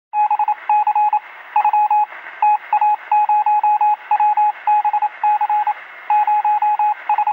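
Electronic beeping: one steady tone keyed on and off in quick groups of short and longer beeps, with a thin, radio-like sound.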